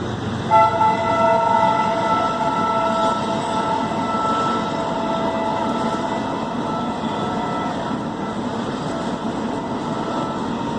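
Passing train's horn sounding one long multi-tone blast that starts about half a second in, loudest at first and slowly fading. Beneath it runs the steady rumble of the train's wheels and carriages.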